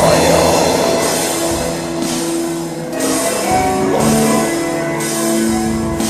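Recorded heavy metal music: distorted electric guitars holding long, slow notes over drums, with a cymbal wash about once a second.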